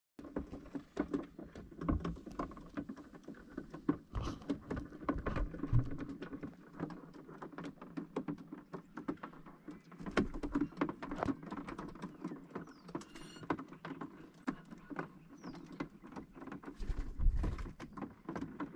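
Parrots' feet and beaks tapping and scratching on a caravan's roof and solar panel: a dense, irregular patter of clicks that sounds like rain on the roof. A short bird call is heard around the middle, and a few heavier thumps stand out.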